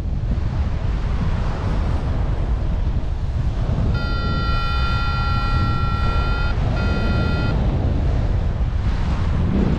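Wind buffeting the microphone in a steady rush. Around the middle a steady high electronic tone sounds twice, first for a couple of seconds and then briefly.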